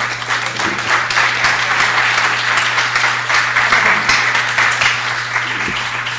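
Audience applauding, a dense patter of many hands clapping that starts right away and tapers off slightly toward the end.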